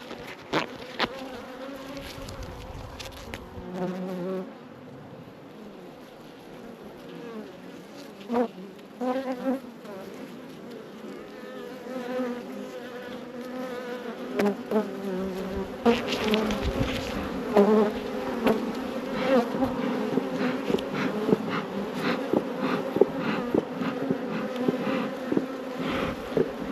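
Honey bees buzzing around an open hive, with short clicks and knocks throughout. The buzzing grows louder about halfway through.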